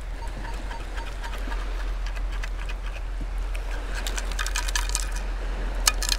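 Perforated metal sand scoop being shaken to sift dry beach sand, giving a run of rattles and metallic clinks from about four seconds in as stones and the recovered coin knock against the mesh.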